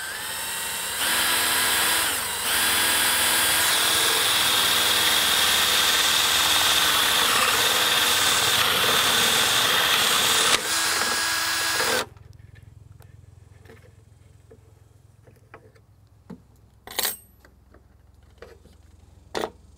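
Cordless drill driving a spade bit through plywood: the motor winds up and runs steadily with a whining, chewing cut for about twelve seconds, then stops suddenly. A few light knocks follow near the end.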